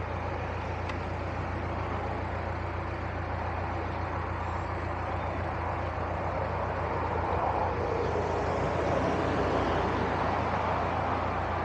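Narrowboat's diesel engine running steadily while cruising, a low even drone, getting a little louder about eight seconds in.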